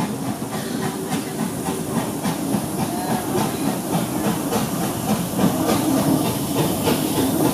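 Small steam tank locomotive No 3 Twizell passing at close range with steam hissing. Its train of wooden coaches follows, running and clicking on the rails, and the sound gets louder as the coaches go by.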